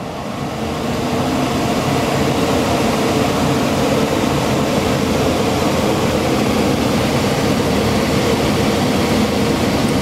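Minneapolis Blower Door fan, fitted with its B flow ring, speeding up over the first second or two and then running steadily at high speed with a steady hum, moving air through the house to pressurize it for an airtightness test.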